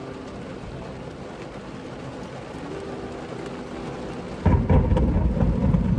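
Heavy rain falling steadily, then about four and a half seconds in a big, loud clap of thunder breaks and rumbles on.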